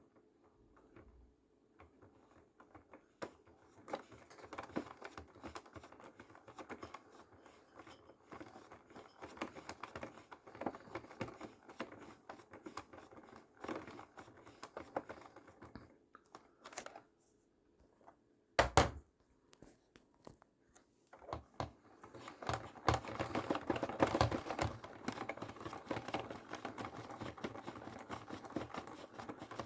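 Washing machine on its rinse, the load clattering and scraping irregularly against the drum, with a sharp knock about two-thirds of the way through and louder, busier rattling after it.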